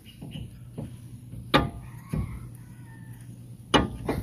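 Sharp metallic clanks and knocks from a disc-brake caliper and its bolts being handled as the caliper is worked loose. There are four knocks: the loudest, with a short ring, about a second and a half in, and two close together near the end.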